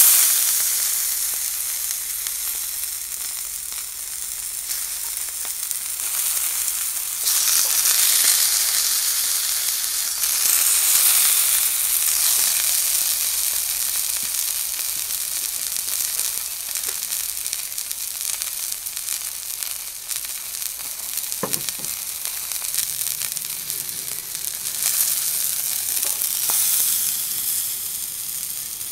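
Elk steak sizzling in a hot, oiled enamelled frying pan. The steady hiss swells right at the start, as the steak is lifted with wooden spatulas, and again a few times later.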